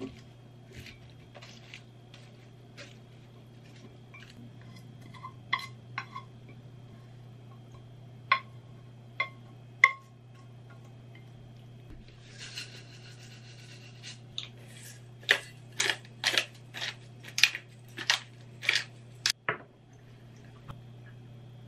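Chopsticks clicking and scraping against a ceramic dish and a frying pan as greens and cooked pork are tossed and pushed into the dish, with a brief scraping rush a little past halfway and a quick run of sharp clicks and knocks near the end. A steady low hum sits underneath.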